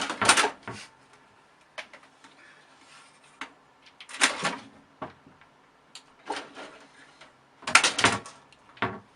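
A series of short knocks and scuffing noises at irregular intervals, the loudest at the start, about four seconds in and about eight seconds in.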